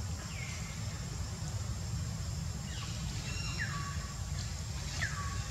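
A few short, high animal calls that slide down in pitch, one near the start and several more from about three seconds in, over a steady low rumble.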